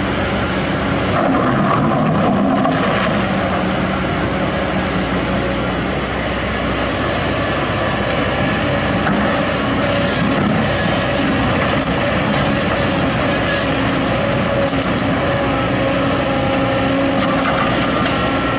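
Kobelco SK200 hydraulic excavator running steadily as it works its boom and bucket in the river, its diesel engine and hydraulics giving a constant, even drone. The level swells a little a second or so in.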